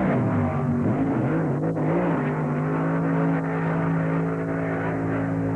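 Drag-race car engine at full throttle running down the strip; its pitch dips and climbs back a couple of times in the first two seconds, then holds steady.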